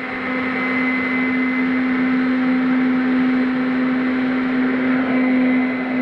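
Small electric ducted fan (EDF) running steadily at high power during hand launch and climb-out: a whirring rush with a steady low hum.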